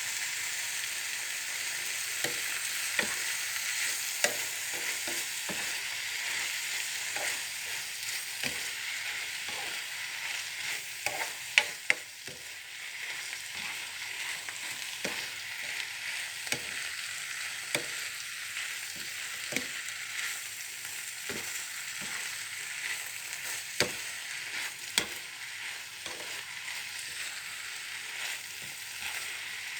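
Cabbage sizzling in a hot pan while being stir-fried, a steady hiss with irregular scraping clacks of the spatula against the pan, two louder knocks a little before twelve seconds in.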